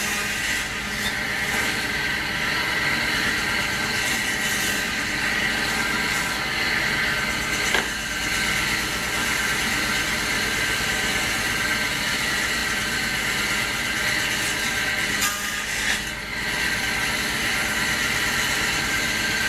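A machine running steadily, with a few brief knocks about 8 seconds in and again near 15 to 16 seconds.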